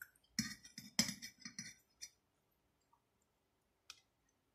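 Metal fork clinking and scraping against a plate while twirling spaghetti: a quick run of small clinks over about a second and a half, then a single sharp click near the end.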